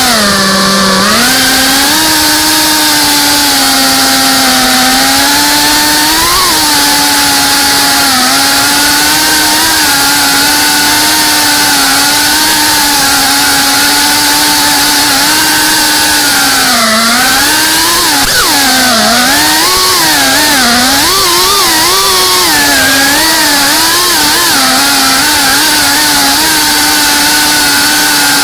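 Brushless motors and propellers of a GEPRC Cinelog 35 3.5-inch cinewhoop FPV drone, recorded on board: a loud, steady buzzing whine that changes pitch with the throttle. It dips about a second in and wavers up and down for several seconds past the middle as the drone manoeuvres.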